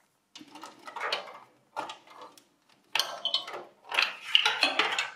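SATA cables being unplugged from a desktop PC's motherboard: plastic connectors clicking and cables rattling against the metal case, in four short bursts.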